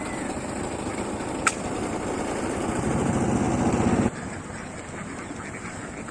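Motor vehicle engine idling close by, growing a little louder, then dropping off sharply about four seconds in to a quieter background hum. A single sharp click about a second and a half in.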